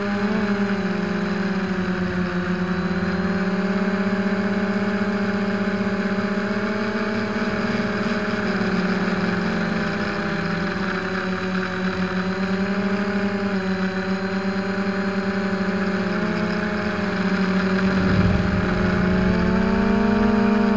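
Hoverthings Flip Sport quadcopter's four motors and carbon-fibre propellers whining steadily in flight, heard from the onboard camera, several pitches drifting up and down together with the throttle. Near the end a low rumble joins in and it gets a little louder.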